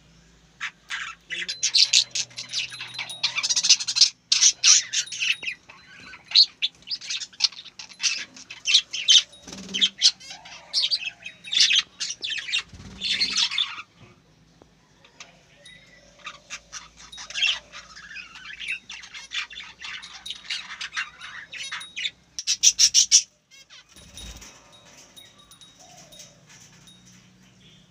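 A bird chirping and squawking in fast runs of short, high calls, pausing for about two seconds midway and fading near the end.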